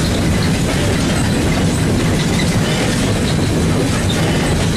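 Steady, loud running noise inside the cab of Southern Railway 2-8-0 steam locomotive No. 630 as it moves along the track, the wheels running on the rails.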